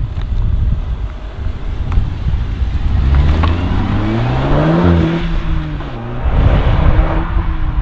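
Seat Leon Cupra R's turbocharged four-cylinder engine accelerating hard away from the junction. The revs climb, drop at an upshift about five to six seconds in, then climb again.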